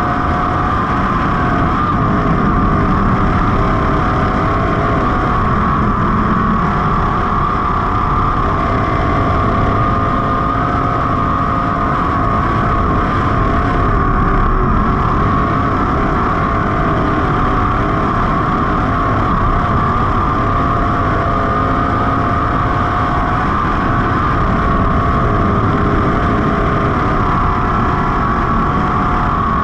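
305 sprint car's small-block V8 running hard under load, heard from the cockpit. Its loud, steady note wavers slightly in pitch.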